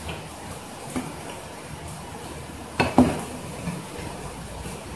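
A kitchen knife is laid down on a plastic cutting board, giving two sharp clacks about three seconds in, over a steady hiss of running water.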